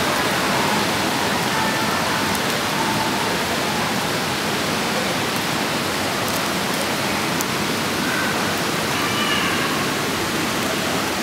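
Steady, even rushing of falling water, constant throughout.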